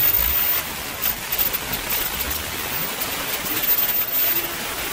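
Kingtech 160 model jet turbine engine running in a radio-controlled F-18, a loud, steady, even rushing noise with no clear pitch.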